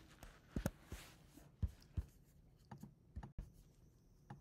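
A handful of quiet, sharp clicks and taps at a computer, spaced irregularly, as the lecture slide is advanced.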